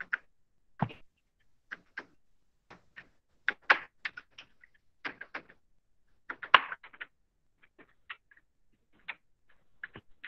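Computer keyboard keys clicking irregularly, single taps and short quick runs of several, as spaces are typed between numbers in a text box.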